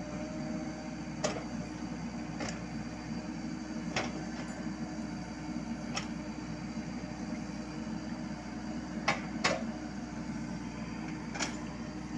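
Komatsu PC78US mini excavator's diesel engine running steadily as it digs, with sharp knocks from the working machine every second or two, about seven in all, two of them close together.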